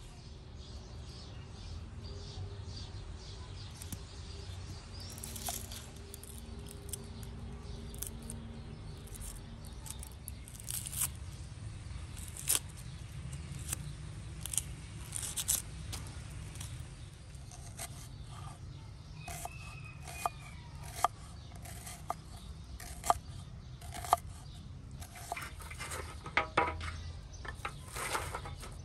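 Kitchen knife cutting onion on a wooden board: sharp knocks and crisp cuts at uneven intervals over a steady low background rumble. Near the end, dry sticks clack as they are laid out for a fire.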